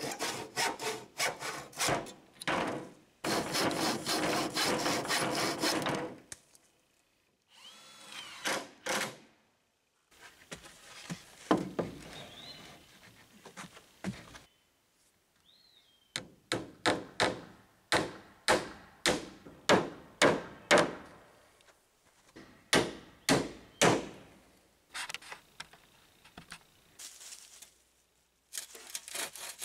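Small hand saw cutting through corrugated polycarbonate roofing in quick rhythmic strokes for about six seconds. Later comes a run of sharp knocks on wood, about two a second, and near the end a handsaw starts cutting a wooden board.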